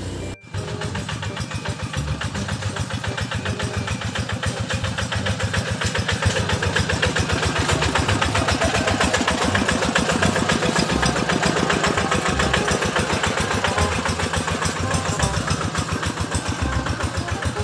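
Single-cylinder diesel engine of a Quick two-wheel hand tractor chugging steadily with a rapid, even beat as it pulls a loaded cart. It grows louder over the first few seconds as it draws near.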